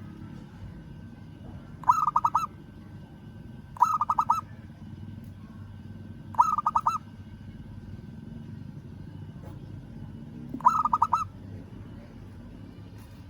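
Zebra dove (perkutut) cooing to call a rival: four short trilled coos, each about half a second long, coming two to four seconds apart.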